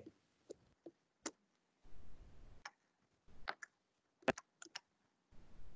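Scattered faint clicks and ticks, a few of them bunched together about four seconds in, with short stretches of faint low noise cutting in and out over a video-call line.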